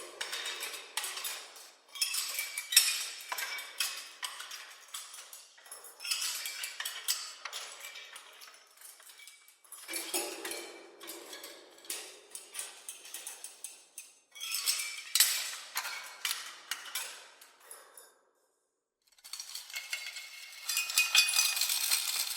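Clattering and clinking of small metal objects, like cutlery and pans knocking together, in a string of bursts a few seconds long with short dips between them and about a second of silence near the end.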